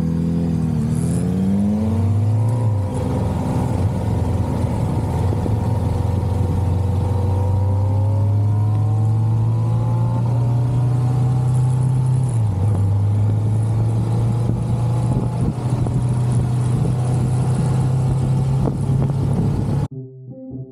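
Kawasaki Vulcan S 650's parallel-twin engine under way. It dips in pitch briefly near the start, as at a gear change, then climbs and settles into steady cruising with a slow rise. It cuts off abruptly near the end, giving way to piano music.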